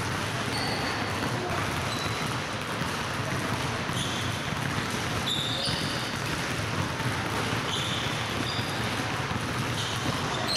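Many basketballs dribbled at once on a hardwood gym floor, a dense overlapping patter of bounces. Short high sneaker squeaks come in now and then.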